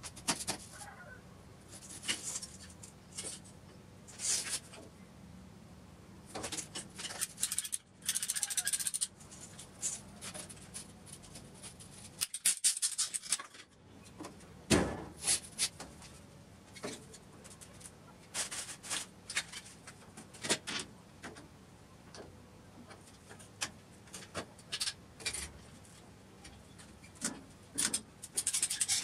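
Irregular clicks, taps and scrapes of PVC pipe and fittings being handled and fitted together, with a few denser rustling stretches and one sharper knock about halfway through.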